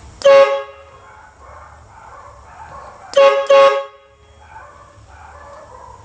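Homemade pneumatic horn blaster, an air horn fired by a 3-way solenoid at 20 psi, giving three short, loud blasts: one at the start, then two in quick succession about three seconds in.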